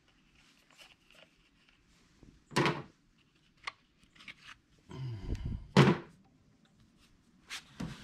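Clicks and clunks of a Hitachi DH40FR hammer's plastic housing being handled and its motor cover pulled off once the Allen bolts are out. There are several separate knocks, the loudest a thunk about six seconds in.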